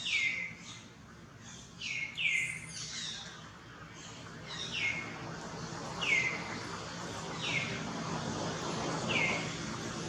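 Baby monkey crying: about seven short, high squeals, each falling in pitch, a second or two apart.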